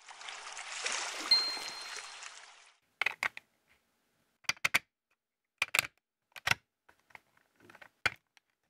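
A rushing hiss that swells and fades over about two and a half seconds, with a brief high tone in the middle. Then Lego Technic pieces clicking sharply in small irregular clusters as they are pressed together by hand on a turntable and gear base.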